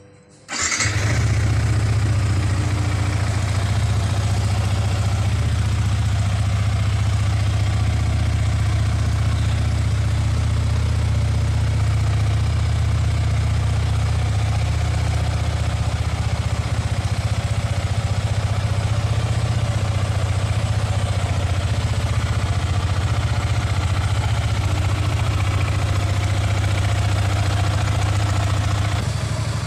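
Yamaha R15 V3's single-cylinder, liquid-cooled 155 cc engine starting about half a second in, then idling steadily during a warm-up.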